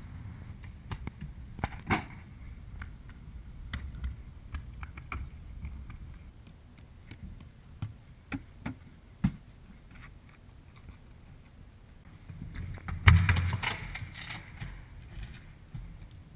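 Parkour movement heard through the camera's own microphone: scattered footfalls, scuffs and sharp knocks of hands and feet on rail, gravel and concrete, over a low rumble. The loudest is a hard landing thud about thirteen seconds in.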